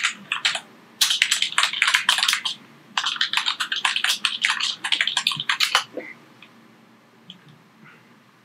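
Typing on a computer keyboard: two fast runs of key clicks, each a couple of seconds long, then a few single clicks near the end.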